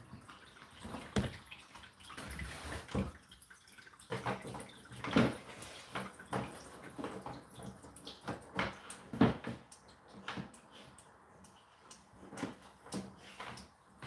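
Whirlpool dishwasher in its 65 °C main wash: water thrown by the spray arms splashing irregularly against the dishes and tub walls, heard through the door held ajar, with the louder splashes about 5 and 9 seconds in.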